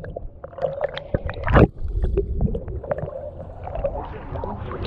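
Muffled water sloshing and gurgling around a hand-held waterproof camera bobbing half-submerged at the surface, with scattered small splashes and knocks and one louder splash about a second and a half in.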